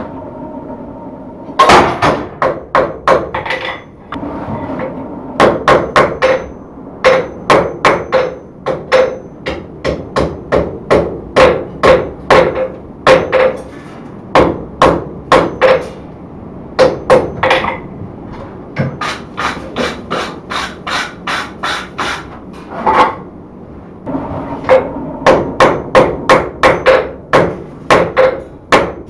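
A hand hammer strikes a red-hot steel bar on an anvil in runs of quick blows, about two to three a second, with short pauses between runs. The anvil rings on the strikes.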